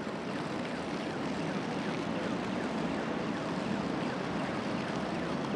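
Steady city street traffic noise, a constant hum of vehicles, with faint short falling chirps over it.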